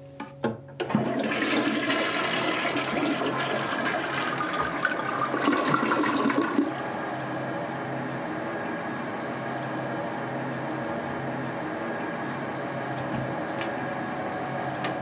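Toilet flushing: a couple of clicks as the handle goes down, then a loud rush of water for about six seconds. It settles into the steady hiss of the tank refilling. A light switch clicks near the end.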